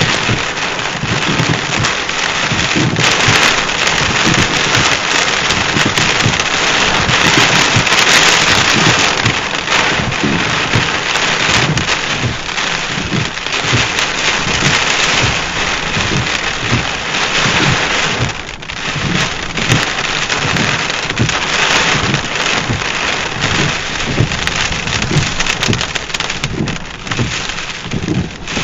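Heavy rain pelting a truck's roof and windshield in a thunderstorm, a steady dense hiss with many small knocks, while the windshield wipers run.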